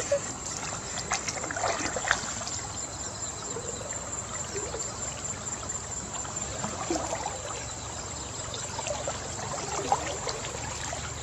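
River water swishing and trickling around people wading waist-deep through it, with a few small splashes and knocks.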